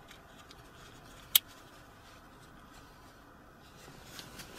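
Quiet background with one sharp click about a second and a half in, and a few faint ticks around it.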